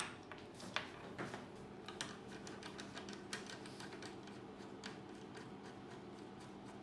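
Scattered light clicks and knocks of the TIG welding torch's cable and connector being handled and fitted to the welder, the sharpest click right at the start and another just under a second in, over a faint steady hum.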